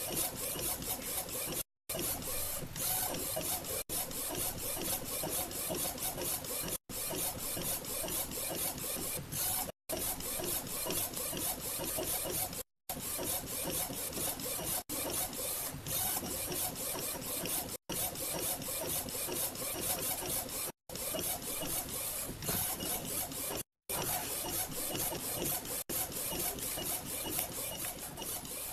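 A small A4 eco-solvent flatbed inkjet printer printing, its print-head carriage shuttling back and forth steadily. The sound breaks off briefly every two to three seconds.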